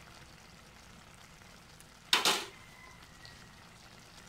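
Escabeche sauce simmering faintly in a pan. About two seconds in there is one loud, brief hiss, followed by a faint thin ringing tone.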